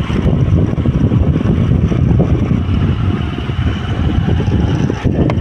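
Riding a motorbike: a steady, loud rush of wind on the microphone over the bike's running engine.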